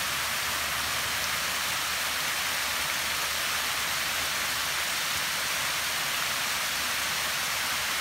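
Small stream rushing down over a sloping rock slab in a shallow cascade: a steady, even rush of running water.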